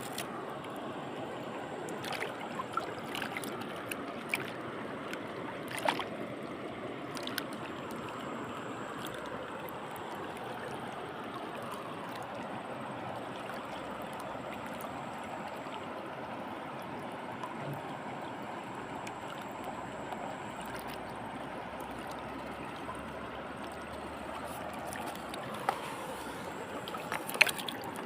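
Steady rush of flowing stream water, with a few sharp clicks and taps scattered through it, the loudest near the end.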